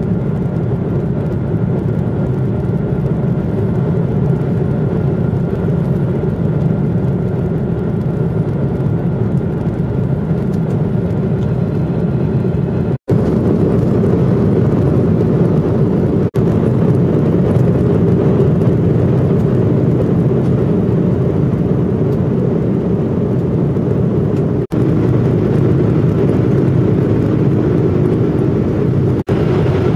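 Steady rumble of a jet airliner's engines and airframe heard inside the passenger cabin, cutting out briefly four times.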